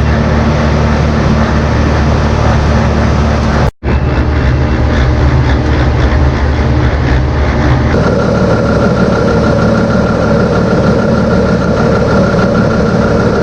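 Farm tractor engine running steadily under load. The sound cuts out for a moment just under four seconds in. About eight seconds in it changes, and a steady higher whine joins the engine.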